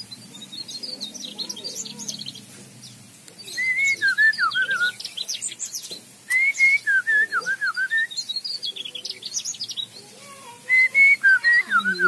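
Mugimaki flycatcher singing in an aviary: three loud phrases of quick, wavering whistled notes, each about a second and a half long and roughly three seconds apart, with thinner, higher twittering in between.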